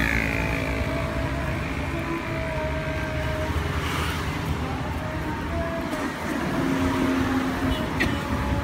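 Road traffic going by, cars and motorbikes, a steady engine rumble with passing engine tones. There are a few light clicks near the end.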